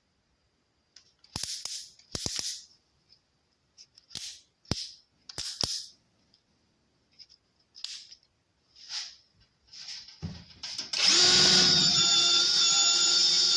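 AKZWOXRO 21V cordless drill driver run in short spurts with a few sharp clicks. About eleven seconds in, the motor starts running steadily as a continuous whine.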